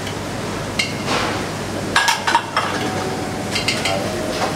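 Kitchen clatter: stainless steel pans and utensils clinking a few times, with a cluster of knocks about halfway through, over a steady background hum.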